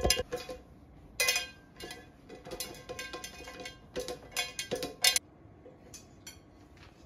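A large metal pan being handled and set down, knocking and clanking several times with brief metallic ringing after each knock. The sharpest knock comes about five seconds in, and it is quieter near the end.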